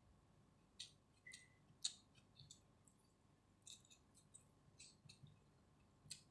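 Faint, irregular mouth clicks and smacks of a person chewing chicken biryani, about a dozen short sharp sounds, the loudest about two seconds in.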